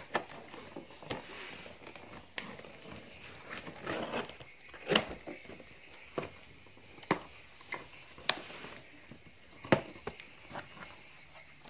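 Packing tape on a cardboard box being slit and torn open, with the cardboard flaps handled and pulled apart: a run of irregular crackles, rips, rustles and sharp knocks, the loudest knocks about five seconds in and near the end.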